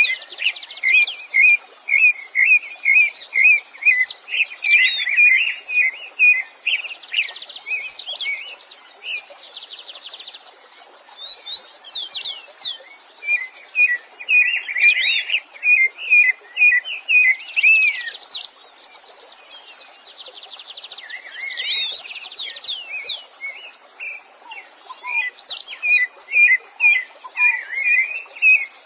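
Several songbirds singing together: long runs of quick repeated chirps, with higher up-and-down whistles and buzzy trills over them, easing off briefly a little past halfway. A faint steady rush of stream water runs underneath.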